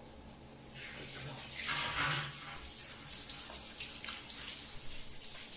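Handheld shower head spraying water onto a dog's wet coat, the spray starting about a second in and then running steadily.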